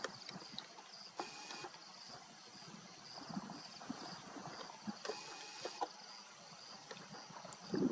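A lion chewing on a warthog carcass: irregular crunches and clicks of teeth on flesh and bone, the loudest near the end. Twice, about a second in and again about five seconds in, a camera's zoom motor whirs for about half a second.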